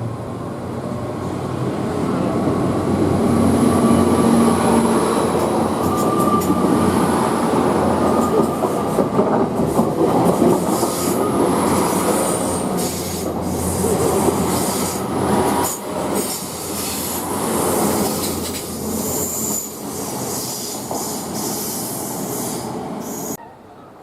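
A train passing close by: a loud, sustained rumble of wheels on rail with high-pitched wheel squeal over it. The sound drops off abruptly near the end.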